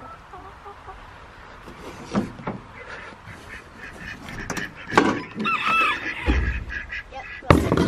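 Poultry in the yard giving two short calls just after the middle, over scattered small clicks of handling. Two sharp wooden knocks, about five seconds in and near the end, come from the hinged wooden lid of the nest box being handled and opened.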